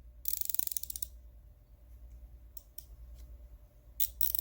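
A 1/4-inch-drive Carlyle ratchet being worked, its pawl clicking in a fast run of fine ticks for about a second, then a few single clicks, then another fast run near the end.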